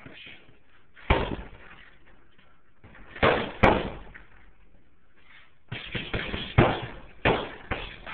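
Punches landing on a hanging heavy bag: single hits and quick combinations, each a sharp thud with a short echoing tail, with a flurry of about four hits near the end.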